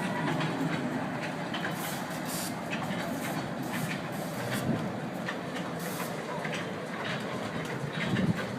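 Fairground kiddie train ride running along its track, a steady rumble with scattered small clicks, over background chatter.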